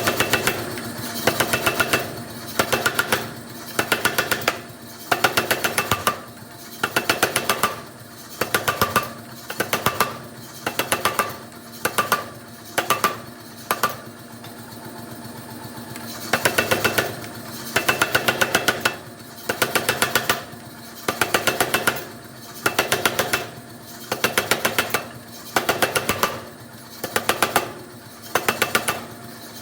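Steel being forged with hammer blows: short groups of rapid, ringing metallic strikes about once a second, with a pause of a couple of seconds near the middle.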